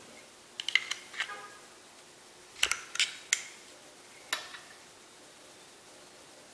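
Small metal parts of a Glock 19 Gen 5 pistol clicking and clinking against each other and a hard surface as it is taken apart: a quick cluster of clicks about half a second in, a few sharper clacks around three seconds, and one more past four seconds.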